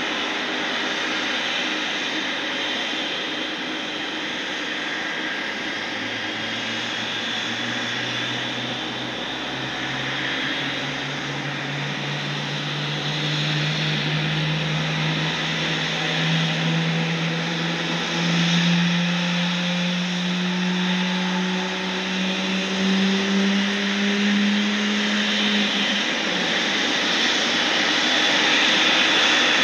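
General Electric GE90 engines of a Boeing 777 running during pushback: a steady jet whine and hiss, with a low hum that rises slowly in pitch from about six seconds in and stops a few seconds before the end. The sound grows a little louder toward the end.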